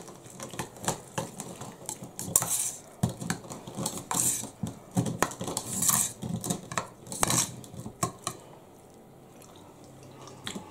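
A utensil stirring and scraping through dressed broccoli slaw in a ceramic bowl, with repeated clinks against the bowl's side. The clinking dies down about eight seconds in.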